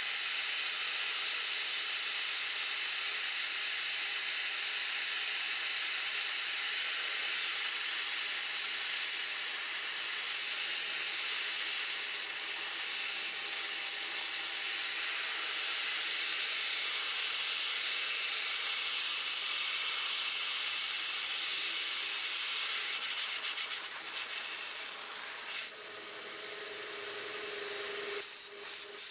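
CNC-converted 9x20 benchtop metal lathe turning a bearing adapter under program control: a steady hiss with several fixed whining tones from the running machine and cut. About 26 seconds in, the hiss thins and a steadier lower tone is left, with a few brief breaks near the end.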